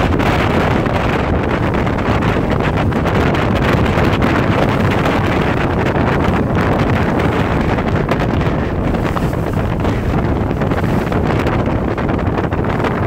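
Strong wind blowing across the microphone: a loud, steady, rumbling rush of noise.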